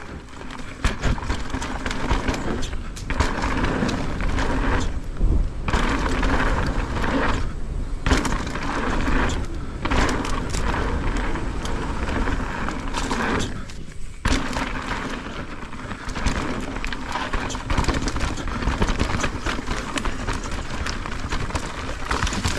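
Santa Cruz Megatower enduro mountain bike ridden down a dirt trail: a steady rumble of tyres rolling over the ground, with knocks and rattles from the bike. The noise drops briefly several times.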